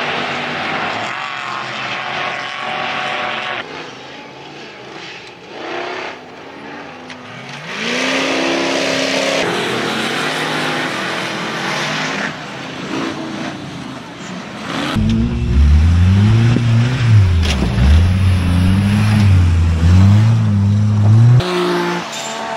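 Ultra4 off-road race cars' engines revving and accelerating hard, the pitch rising and falling, with the sound changing abruptly several times. About two-thirds through, a louder, deep engine revs up and down rapidly for several seconds, then cuts off suddenly.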